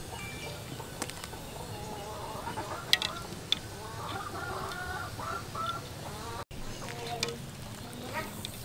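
Domestic chickens clucking in a wavering chatter, loudest in the middle, with a couple of sharp clicks about three seconds in as bamboo skewers are set into the wok.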